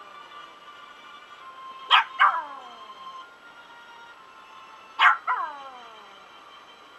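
Small fluffy dog singing along to a Chinese worship song playing quietly from a phone: two pairs of short, high-pitched barks, each bark sliding down in pitch, about two seconds and five seconds in.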